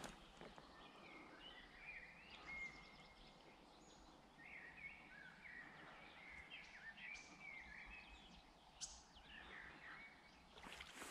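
Faint birdsong: a string of quick chirping and warbling phrases over a quiet outdoor background, with one soft click about nine seconds in.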